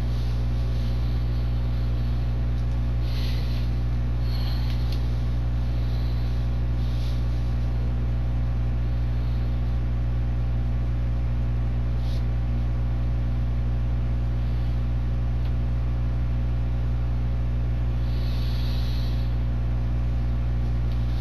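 Loud, steady electrical mains hum with a buzz of many even overtones, the room or recording-system hum of an interrogation-room camera feed. A few faint, brief hisses come and go, around three, four and twelve seconds in and again near the end.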